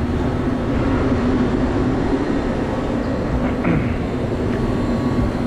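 Walk-in freezer condensing unit running: a steady rush from its condenser fan over a constant low hum.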